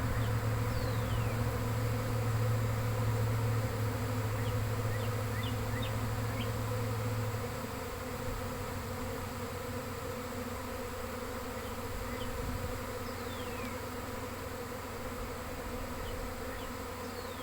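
Honey bee swarm buzzing steadily around a nuc box. Now and then a single bee passes close with a brief buzz that slides in pitch. A steady low hum underneath stops about seven seconds in.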